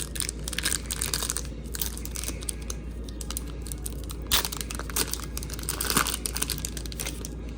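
Trading card pack wrapper being torn open and crinkled by hand, with irregular crackling crinkles.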